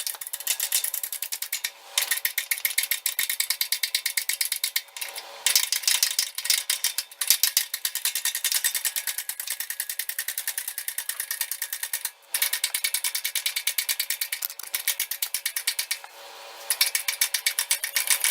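Fast, even ratcheting clicks, several a second, in runs of a few seconds with short pauses between them, from broaching a keyway in a machined pulley.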